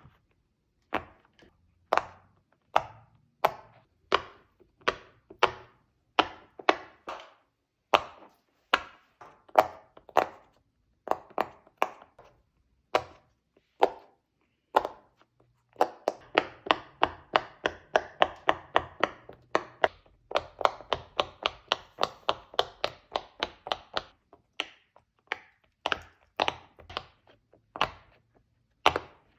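Silicone push pop it fidget toy, its bubbles pressed in one by one, each giving a short little pop. The pops come about once a second, then in a quicker run of about three a second through the middle, then slow again.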